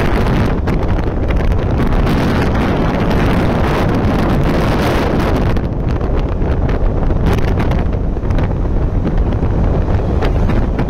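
Steady wind rush buffeting the microphone of a Hero Honda CBZ 150cc motorcycle cruising at speed, with engine and road noise underneath.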